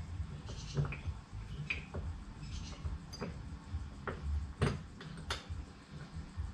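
Scattered metal clinks and taps of a bolt and hand tools at an engine mount, with two sharper clicks in the second half, over low fumbling and handling noise. The bolt is not going in easily.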